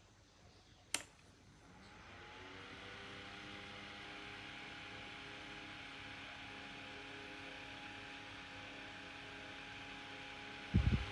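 A rocker switch clicks, then a small brushless DC fan on an E27 socket spins up within about a second and runs steadily and quietly: a soft rush of air with a faint, even motor hum. A couple of low thumps come near the end.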